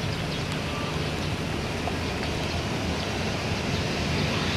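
Boeing 737-500's CFM56 jet engines at taxi idle as the airliner taxis on a wet taxiway, a steady rushing noise mixed with rain. It grows slightly louder near the end.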